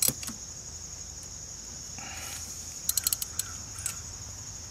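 Socket ratchet and metal tools clinking against the engine: a sharp click at the start, then a quick run of ratchet clicks about three seconds in, as a 10 mm oil-line bolt on the Kawasaki Bayou 220's engine is tightened. Steady high insect chirring runs underneath.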